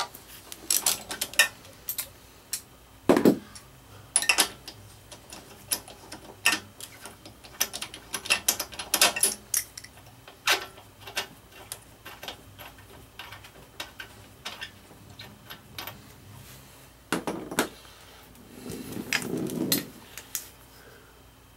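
Metal hand tools clicking and clinking irregularly as a spark plug socket and wrench are worked on a lawnmower engine's spark plug, with a few louder knocks about 3 s in and near the end and a short rattle shortly before the end.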